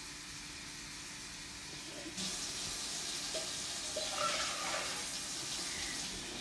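Water running from a kitchen sink tap, a steady hiss that starts about two seconds in, with a few light knocks.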